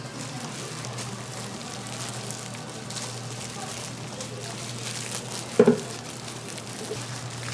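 Food frying in hot oil with a steady sizzle over a low hum, and a short loud voice-like sound a little past halfway.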